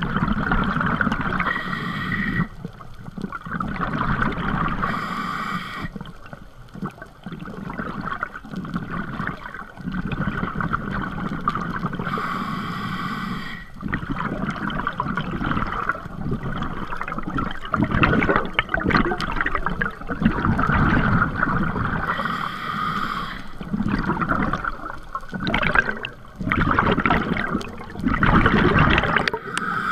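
Scuba diver breathing through a regulator underwater: irregular bursts of exhaled bubbles, heavier in the second half, with a few separate hissing inhalations.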